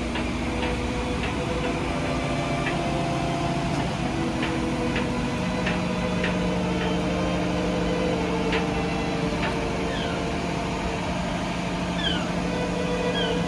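Heavy-haul convoy's diesel engines running steadily at low speed, their pitch shifting about halfway through, as the multi-axle trailer rolls past. Short high chirps and ticks come through over the engine sound, a few of them falling in pitch near the end.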